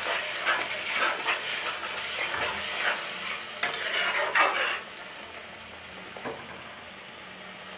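A metal spatula scraping and stirring a thick onion-tomato masala sizzling in oil in a metal kadai, in repeated strokes. The stirring stops a little under five seconds in, leaving a quieter steady sizzle.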